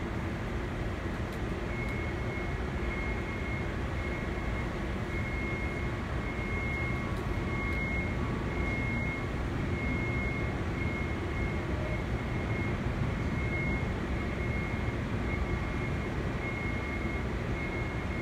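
Steady low rumble of machinery or ventilation filling a large hangar, with a faint high beep pulsing on and off a little faster than once a second.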